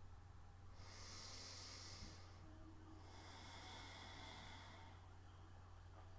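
A woman's faint, slow, deep belly breaths: two long breath sounds, the first about a second in and the second about three seconds in, over a low steady hum.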